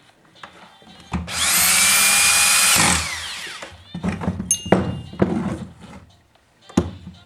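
A small electric power tool, such as a drill or screwdriver, spins up and runs at a high pitch for about a second and a half, then winds down. Clicks and knocks of parts and tools being handled follow, ending with a sharp click.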